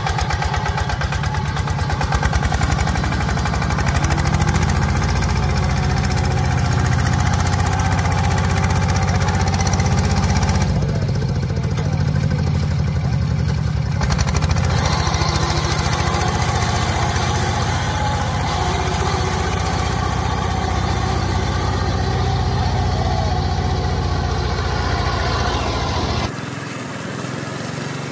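Power tiller's single-cylinder diesel engine running hard with a fast, steady chugging as it pulls the loaded trolley through paddy-field mud. Near the end the sound drops quieter and thinner.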